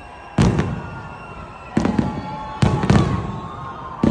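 Aerial fireworks shells bursting overhead: a boom about every second, two in quick succession near the middle, each trailing into a low rumble. Faint music plays underneath.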